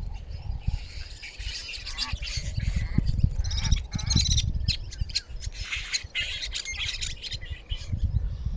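Many birds in a field calling at once: a dense, overlapping chatter of short high calls and squawks, over a low rumble.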